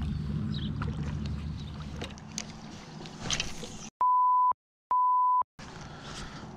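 Water lapping and gurgling around a kayak. About four seconds in, the sound is cut out and replaced by two short electronic bleeps at one steady pitch, each about half a second long and half a second apart: a censor bleep.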